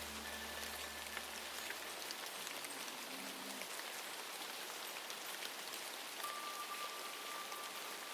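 Steady patter of rain, an even hiss. A low, sustained music drone fades out about two seconds in, and a few soft held tones sound faintly over the rain.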